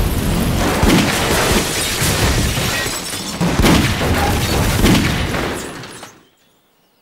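Cartoon blast and rushing sound effects: a loud, continuous noise broken by several booms, dying away to near silence about six seconds in.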